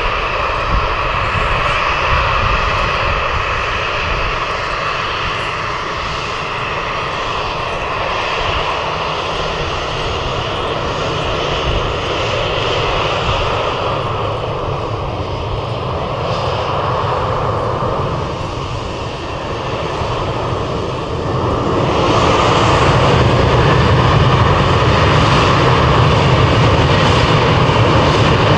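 Boeing 737 twin CFM56 turbofan engines running with a steady whine as the airliner lines up and moves down the runway, then turning suddenly louder and deeper about 22 seconds in as takeoff thrust builds.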